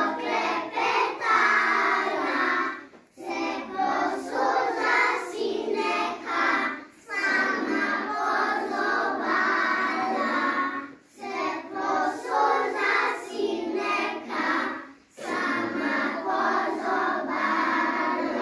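A group of young children singing a song together in Slovenian, in phrases of about four seconds with short breaks between them.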